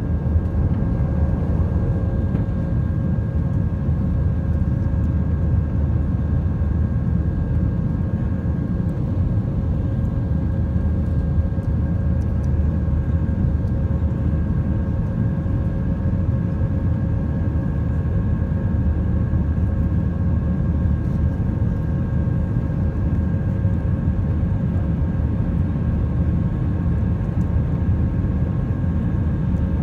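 Airbus A319's IAE V2500 turbofan engines heard from inside the cabin as the airliner climbs out after takeoff: a loud, steady low rumble with a few steady tones over it.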